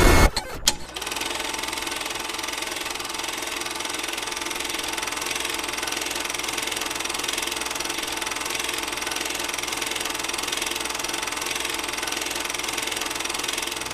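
Film projector running with a steady, fast mechanical clatter, after a few sharp clicks in the first second.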